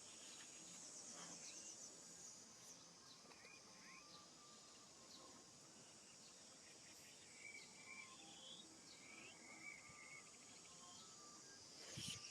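Faint natural ambience of small animal calls: a fast, high, insect-like trill near the start, then scattered short high chirps and squeaks. A sharp click comes just before the end.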